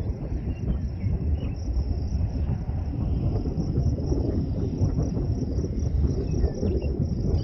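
Insects trilling steadily at a high pitch over a loud, uneven low rumble.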